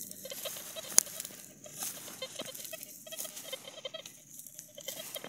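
Dry, stony soil being dug and thrown aside, with clods and pebbles pattering and rattling down, and one sharp knock about a second in.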